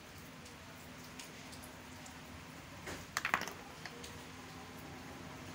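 Giant African land snail shells clicking and knocking against one another as a hand moves among them, with a quick cluster of clicks about three seconds in and a few lighter ticks around it.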